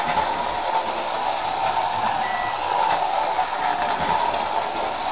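Vintage toy electric train running on three-rail tinplate track: its motor and wheels make a steady whir.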